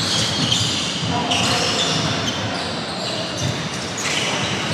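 Basketball game on an indoor court: a ball bouncing on the floor amid players' voices and the general commotion of play, with short high-pitched sounds coming and going.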